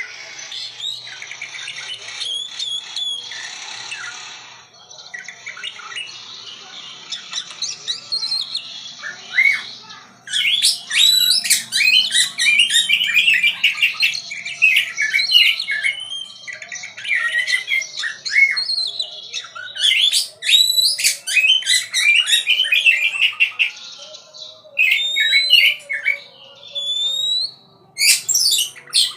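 Songbird singing a long, fast run of varied chirps, whistles and trills. The song grows denser and louder about ten seconds in.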